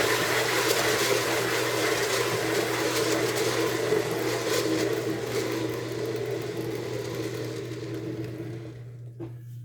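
Homemade 24-inch lazy Susan turntable spun by hand, running with a steady whir that slowly fades as it coasts to a stop near the end.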